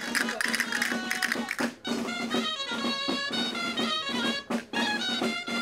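Traditional Castilian folk dance music: a reedy wind melody over a steady low note, with castanets clicking in the first couple of seconds. The music drops out briefly about two seconds in and again near the end.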